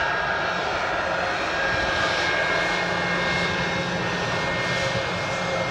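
Boeing 717's twin rear-mounted Rolls-Royce BR715 turbofan engines running at taxi power: a steady rush with a thin, high whine held on top.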